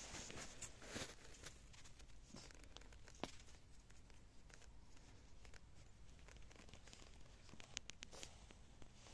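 Near silence with faint rustling and scattered soft clicks, including a quick cluster of clicks about eight seconds in.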